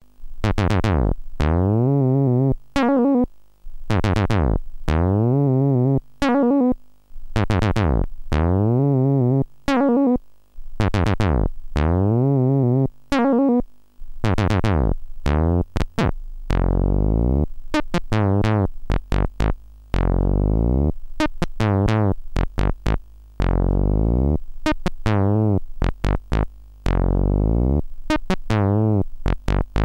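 Synthesizer playing a run of separate notes, each trigger opening the filter so the note starts bright and closes down to a duller tone as it fades; some notes waver in pitch. From about halfway the notes come lower and more often.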